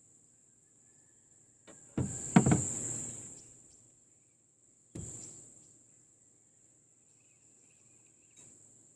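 Steady high-pitched drone of insects such as crickets, broken by a few hard knocks or clatters: a loud one about 2 s in that rings away over a second or so, another about 5 s in, and a faint one near the end.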